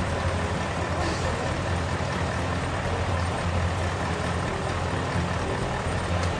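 Double-decker bus's diesel engine running steadily at low revs as the bus creeps slowly round a tight hairpin bend.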